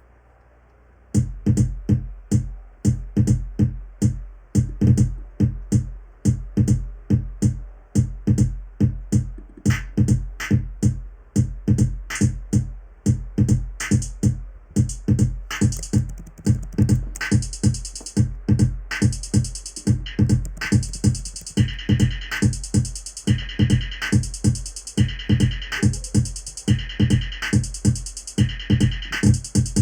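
Electronic dance beat played back from a music production program, in the style of hardstyle: a fast, even run of heavy kick drums over a deep bass, starting about a second in. A hissing hi-hat or cymbal layer joins about halfway through, and pulsing synth chords come in near the end.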